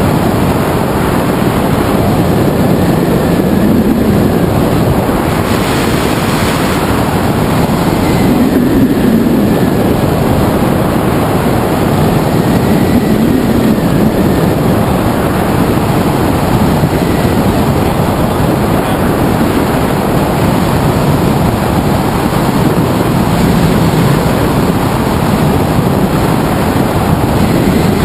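Loud, steady wind rushing over the microphone of a camera on a hang glider's wing in flight.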